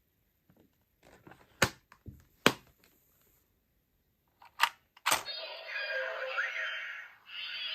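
Plastic toy transformation device handled with several sharp clicks, then its small built-in speaker starts playing an electronic sound effect about five seconds in.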